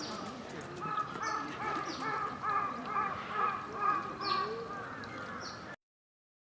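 Repeated short animal calls, about two a second, with a few higher chirps above them. The sound cuts off abruptly near the end.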